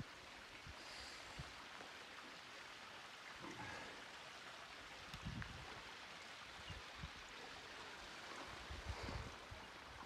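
Faint, steady rush of flowing creek water, with a few soft low thumps now and then.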